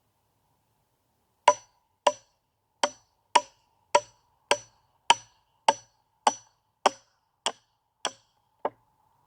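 A run of about thirteen sharp knocks, evenly spaced at a little under two a second, each with a brief ring; they start about a second and a half in and stop shortly before the end.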